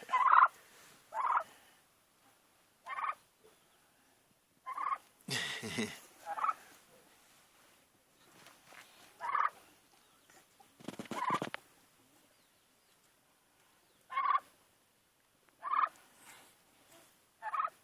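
A turkey calling: short calls every second or two, with a couple of longer, louder calls about five and eleven seconds in.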